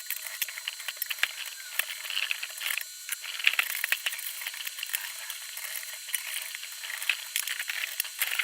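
Dense rapid clicking and rattling of small metal and plastic computer parts as a desktop PC is taken apart, over a steady hiss. The sound is thin, with no low end.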